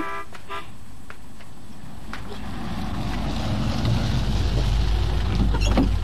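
Low engine rumble of a small pickup truck growing louder as it approaches and pulls up, loudest near the end and then cutting off.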